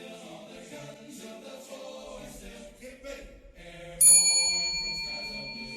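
Many voices overlapping in a busy hall. About four seconds in, a single loud metallic ding rings out with several high tones and fades slowly.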